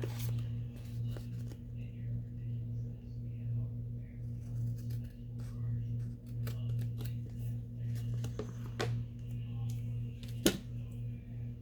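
Scissors snipping and handling paper, a series of short irregular cuts and rustles over a steady low hum, with one sharp click about ten and a half seconds in.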